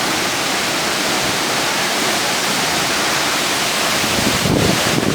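Waterfall: a steady, loud rush of falling water close by, with a brief low rumble near the end.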